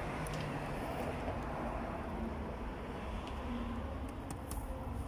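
Steady street background noise with a low rumble, and a few faint clicks about a second in and again near the end.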